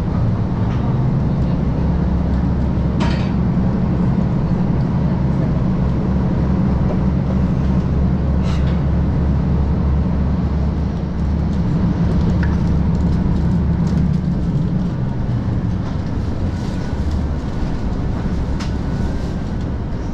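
Onboard running noise of a KiHa 185-series diesel railcar: a steady low engine drone with rail noise underneath, and a couple of sharp clicks.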